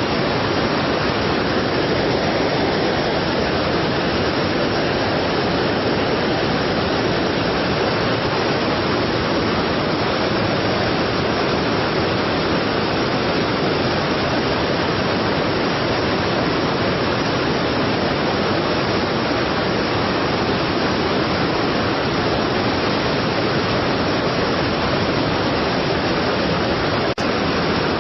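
A strong waterfall pouring in a steady, unbroken rush of falling water. A single brief click with a momentary dip in level comes near the end.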